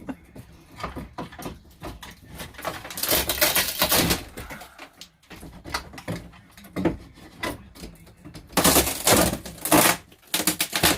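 Hand tools working at an RV ceiling during a teardown: irregular knocks and clatter, with two longer loud scraping stretches, one about three seconds in and one near the end.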